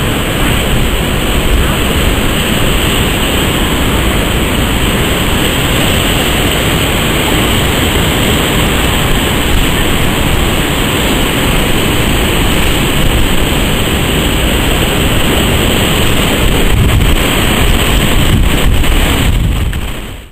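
Heavy surf breaking, a steady roar of waves, with wind buffeting the microphone. It fades out in the last second.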